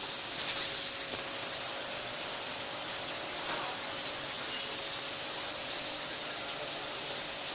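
Kyzuku mini ceiling fan running: a steady high hiss with a faint steady hum beneath, and a few light clicks.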